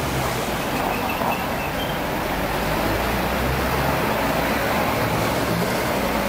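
Steady city street traffic noise, with cars driving past close by.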